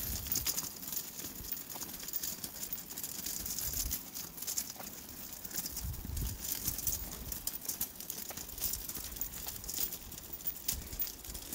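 Footsteps walking on a tarmac path: a steady run of short, irregular scuffing clicks, with occasional low rumbles.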